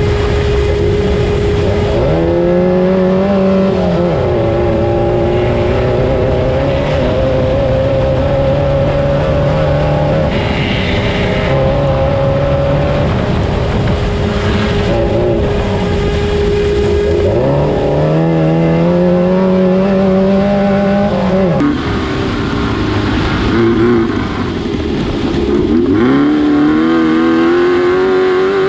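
Class 9 race car's air-cooled VW engine under hard throttle, climbing in pitch as it revs out a gear, dropping back at each shift, and holding a steady pitch in between. The climb comes three times, with a steady whine under the engine for most of the time.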